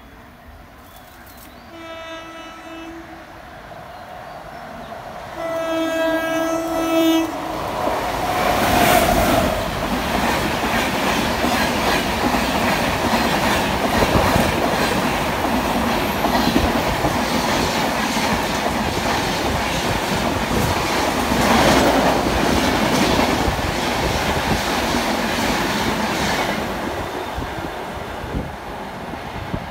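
WAP-7 electric locomotive's horn sounding twice as the train approaches, a short note then a longer one, followed by the loud rush and wheel clatter of the express's LHB coaches passing at speed, fading as the train draws away near the end.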